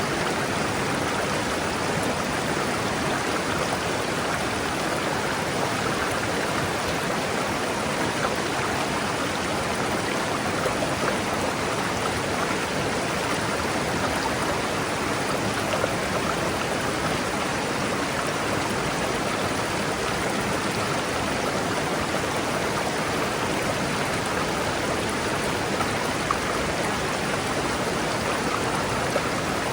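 River water rushing steadily over rocks, an even, unbroken flow.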